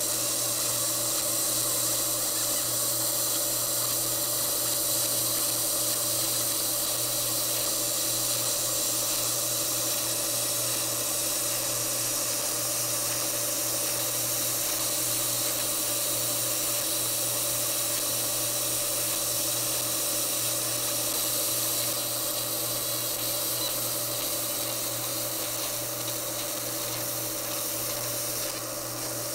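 30-watt fiber laser engraving an anodized aluminium AR-15 lower receiver: a steady high hiss from the pulsed beam marking the metal, over a constant low machine hum.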